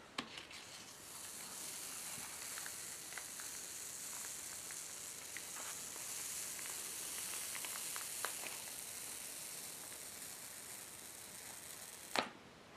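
Printing paper being slowly peeled off an ink-rolled woodblock, the tacky ink releasing with a faint, steady crackling hiss and scattered light ticks. A single soft knock comes near the end.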